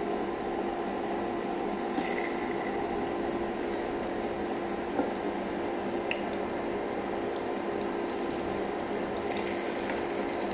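Ladlefuls of batter with tiny freshwater shrimp frying in hot oil in a nonstick pan: a steady sizzle with scattered small crackles and pops. Under it runs a steady hum from the induction cooker.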